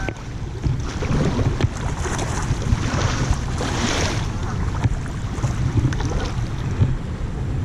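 Wind rumbling on the microphone, with a hiss of water that swells about three to four seconds in and a few faint knocks.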